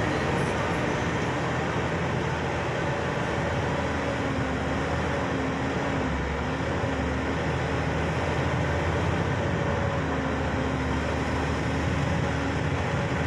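Vehicle's engine and road noise heard from inside the cab while driving, a steady drone with a low hum.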